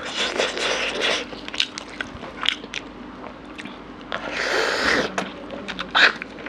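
Close-miked eating: bone-in mutton curry bitten and chewed by hand, with many short wet mouth clicks and two longer noisy stretches, near the start and about four seconds in.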